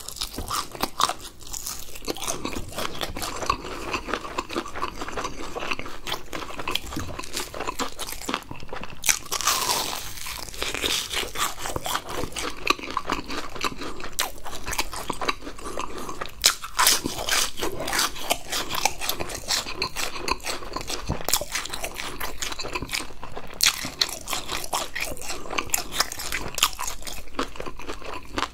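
Close-miked crunching, biting and chewing of crispy fried chicken and fried cheese balls, a dense run of crisp crackles with a few louder bites.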